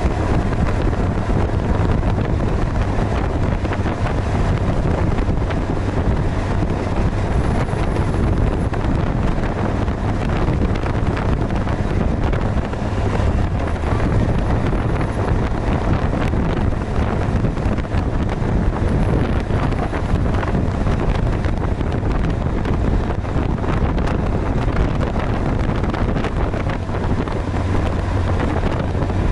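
Suzuki GSX-R1000R's inline-four engine running steadily while the bike is ridden, under heavy wind noise on the microphone.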